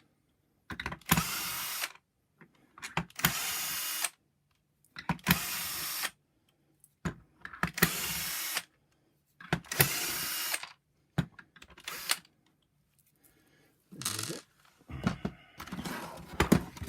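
Electric screwdriver running in about six one-second bursts, roughly every two seconds, backing out the Torx screws that hold the vacuum power nozzle's top cover, followed by shorter clicks and rattles of handled parts near the end.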